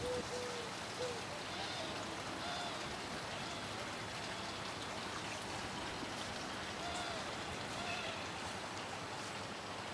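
Steady outdoor hiss like running water, with a dove cooing in the first second and a few faint short calls over it later.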